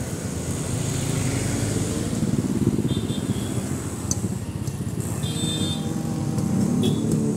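Road traffic passing close by: motorcycles, a scooter and a three-wheeled auto-rickshaw running their small engines, with one engine rising in pitch near the end as the auto-rickshaw goes past. A few short high beeps sound over the traffic.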